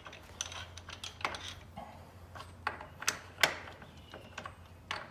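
Hand tools and loose metal parts being handled and set down: a scatter of light clicks and a few sharper metallic knocks.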